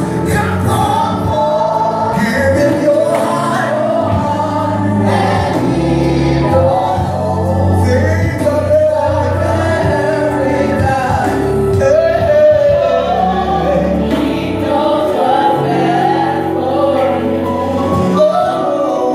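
Live gospel song: a male lead voice with backing singers, over sustained low instrumental notes.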